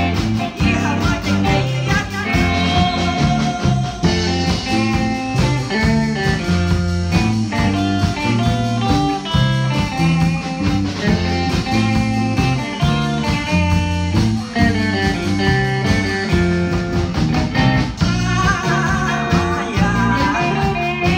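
Live band playing an up-tempo song, with electric guitar over a steady drum beat and a walking bass line.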